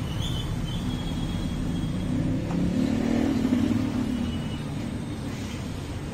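Low, steady rumble of a motor vehicle running nearby, swelling a little around the middle and easing off toward the end.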